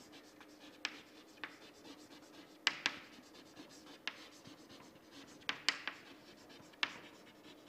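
Chalk writing on a chalkboard: faint scratching broken by sharp taps where the chalk strikes the board, about one or two a second, over a faint steady hum.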